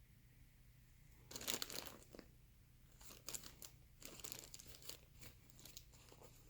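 Faint crinkling and rustling of packaging being handled: a longer rustle just over a second in, then several short crinkles.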